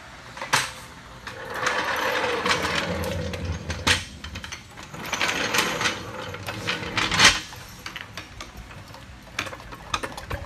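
A floor jack rattling and clanking as it is moved into position under a car, with three sharp metal knocks and two stretches of rattling.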